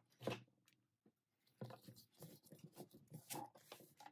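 Faint crinkling and rustling of thin plastic privacy film being handled, a quick crackle near the start, then a run of irregular small crackles through the second half.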